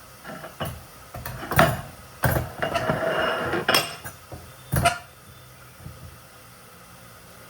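Kitchenware being handled: a string of clinks and knocks from dishes and utensils set down and moved about, with a second or so of scraping in the middle, over the first five seconds.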